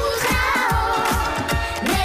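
Georgian pop song playing: a steady dance beat under a held melody line.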